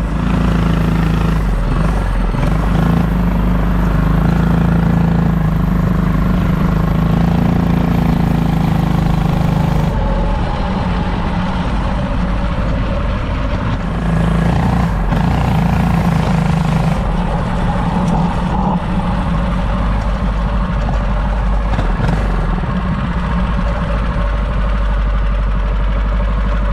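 Predator 212cc single-cylinder four-stroke engine of a home-built mini bike running, its speed and level shifting a few times.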